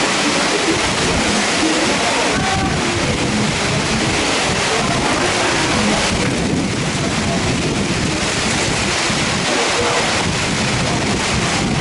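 Heavy rain pouring down in a thunderstorm: a loud, steady rushing hiss, with faint voices underneath.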